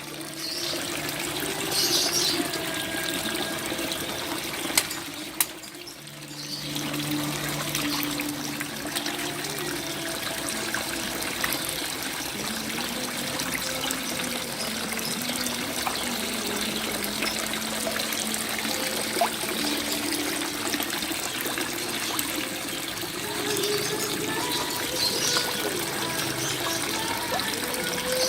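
Water running and trickling steadily, with a splashing rush that dips briefly about five seconds in.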